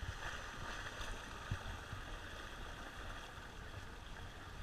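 Choppy water splashing and rushing along a rowing boat's hull, with an uneven low rumble of wind on the microphone.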